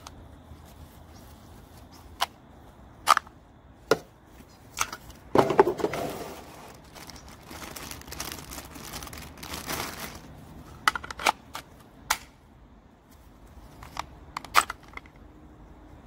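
Clear plastic bag crinkling and rustling as gloved hands handle the plastic battery adapter inside it, with a string of short sharp clicks and taps from plastic parts being handled before and after.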